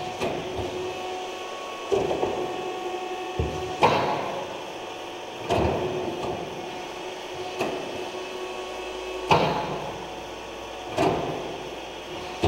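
Ruffinatti IM70 confectionery kneader running empty, its kneading arms turning with a steady mechanical hum. A sharp knock comes roughly every second and a half to two seconds, with a short ring after each one.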